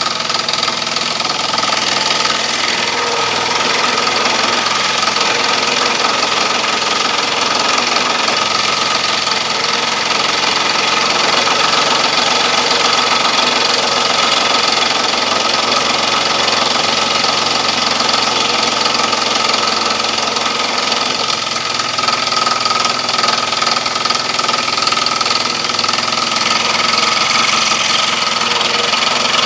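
Electric scroll saw running steadily, its blade reciprocating with a constant mechanical hum.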